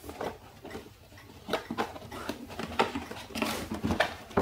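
A cardboard box being opened by hand: the lid's tabs are worked out of their slots and the lid is lifted, giving scattered light scrapes, rustles and small knocks that grow busier in the second half.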